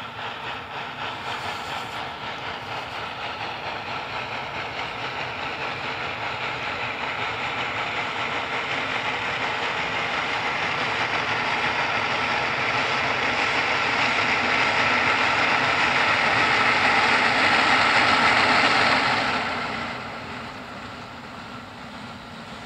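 HGS class 2-8-0 steam locomotive working a freight train toward the listener, its exhaust beating at about two chuffs a second and growing steadily louder as it nears. The sound falls away sharply about nineteen seconds in.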